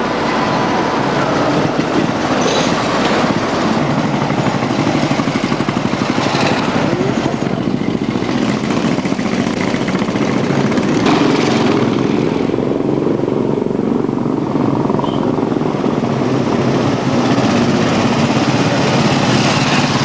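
Royal Enfield Bullet motorcycles riding, their single-cylinder engines running with a steady, rapid beat.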